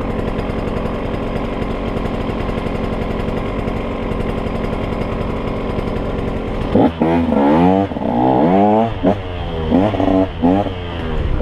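Dirt bike engine running at a steady low speed, then revved hard over and over about two-thirds of the way in, its pitch rising and falling with each twist of the throttle.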